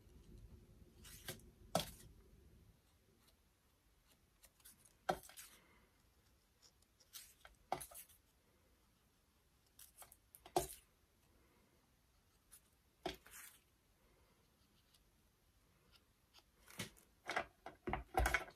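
Paper petals and tools being handled on a work table: scattered sharp clicks and short paper rustles, spaced a second or more apart, growing busier near the end.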